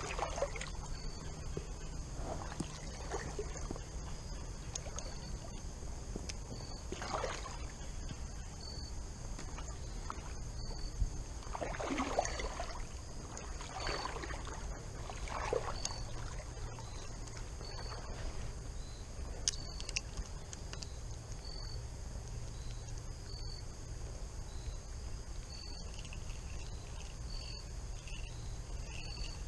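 Water sloshing and splashing around a wader's legs in a shallow creek, in irregular surges, over a steady low rumble. A faint high chirp repeats about once a second.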